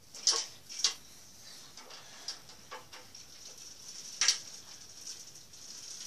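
Sharp clicks and clacks of plastic toys being handled: a toy dump truck and small toy cars knocking together, about six separate knocks, the loudest two in the first second and another a little past four seconds in.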